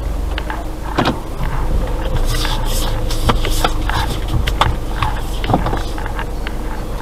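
Inside a car's cabin as it moves slowly: a low steady engine and road rumble, with scattered irregular clicks and a couple of brief creaks.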